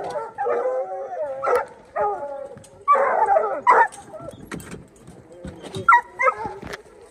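Bear hounds barking and bawling excitedly in several bursts as they are turned loose to start a chase, with a few short knocks between the calls.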